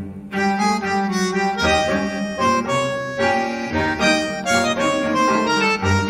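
Background music: a melody of changing notes over a low bass line.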